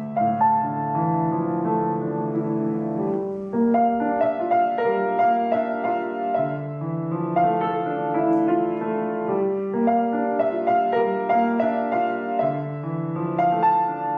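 Gentle instrumental piano music: a melody in held notes over chords, moving in phrases of a few seconds.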